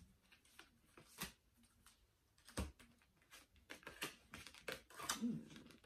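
Tarot cards being handled: faint, irregular light clicks and taps as cards are picked up, sorted and laid down on the table.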